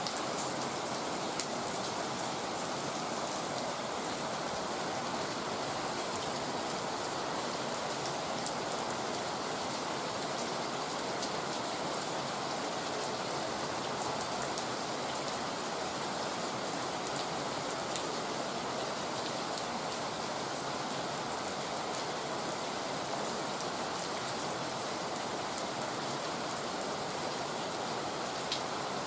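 Heavy rain falling steadily, with a dense even hiss and occasional single drops ticking louder against a surface.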